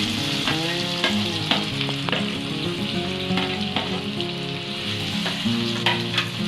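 Chopped onions sizzling in hot oil in a kadai while being stirred, with a handful of short clinks from the spatula against the pan.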